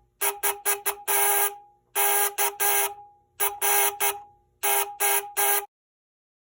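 Morse code sent on the buzzer of a toy telegraph practice set: a raspy, steady-pitched buzz keyed in short and long beeps, in groups with brief gaps between them. It stops abruptly about two-thirds of the way through.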